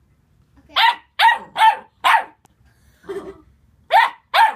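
Young puppy barking at a frisbee in high, yappy barks: four quick barks, a short lower grumble about three seconds in, then two more barks near the end.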